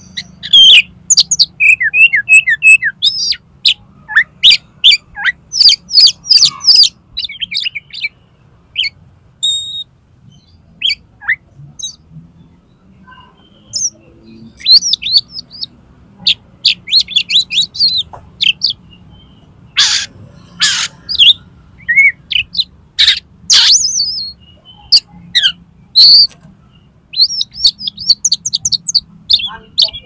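Male oriental magpie-robin singing a loud, varied stream of whistles, trills and harsh chattering notes, full of mimicked phrases, as a song to challenge rival males. The singing eases off briefly about a third of the way through, then resumes with several sharp, loud notes.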